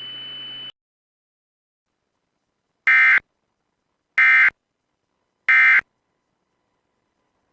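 Emergency Alert System end-of-message data bursts: three short bursts of buzzing digital tones, about a second and a quarter apart, the coded signal that closes an EAS alert. Before them, a brief stretch of radio hiss cuts off.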